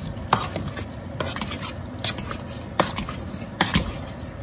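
Wire potato masher mashing soft boiled potatoes in a metal pot, with sharp clinks at irregular intervals where the masher strikes the pot.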